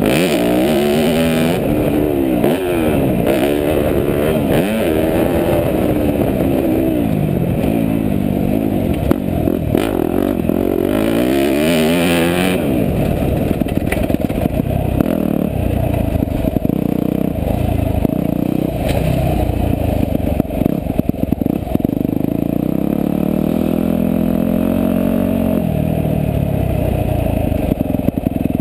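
Yamaha YZ250F four-stroke single-cylinder motocross engine revving up and down as the bike is ridden round a dirt track, its pitch rising and falling again and again. In the second half it runs lower and steadier as the bike slows.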